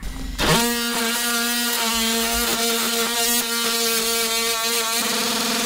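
DeWalt cordless oscillating multi-tool starting up about half a second in with a quick rise in pitch, then running with a steady buzz as its blade cuts into a wooden boat frame. Its sound changes a little about five seconds in.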